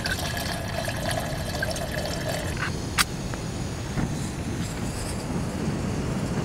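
Strong wind blowing in steady gusts, a loud low rushing rumble. A single sharp click about three seconds in.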